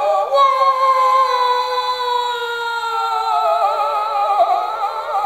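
Two men's voices in improvised wordless vocalising, holding long high tones together: one slides slowly downward while the other wavers in a fast vibrato in the second half.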